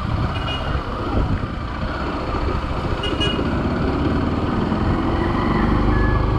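Road noise heard while riding a motorcycle through traffic: steady engine, wind and tyre noise, with short horn toots about half a second and three seconds in.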